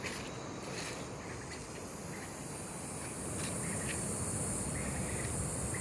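Rainforest background with a steady hiss and a high, even insect buzz that grows louder from about halfway through, plus a few faint clicks.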